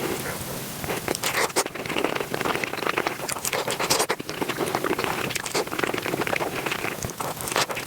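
Close-miked eating sounds sped up about five times: a dense, rapid stream of chewing and crunching clicks and crackles.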